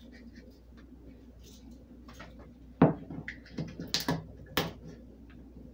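Plastic sprinkle container being handled and shaken: a sharp click about three seconds in, then a quick run of clicks and rattles.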